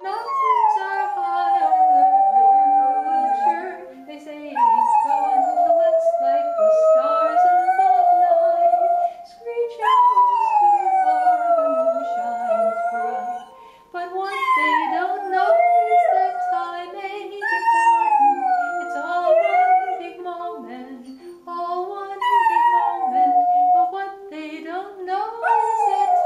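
Beagle howling along to music: a run of long howls of a few seconds each, every one starting high and sliding down in pitch, over a lower melody.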